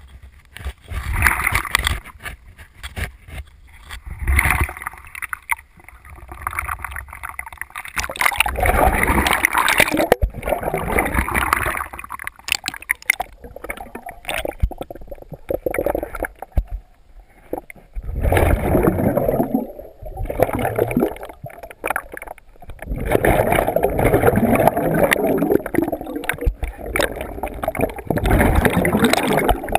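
Scuba regulator breathing heard underwater: a diver's exhaled air gurgling out as bubbles in long bursts every few seconds, with quieter pauses between them while the diver inhales.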